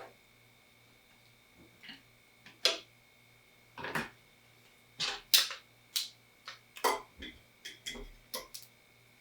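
Close-miked eating sounds of spicy instant ramen: an irregular run of short, wet mouth clicks and smacks from chewing, about a dozen in all, starting about a second and a half in.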